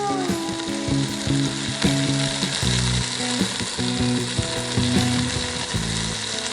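Background music with plucked guitar notes changing every half second or so, over a steady hiss.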